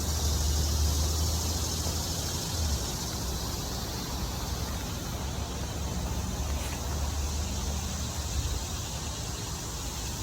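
Steady rushing background noise with a strong low rumble, without clear events.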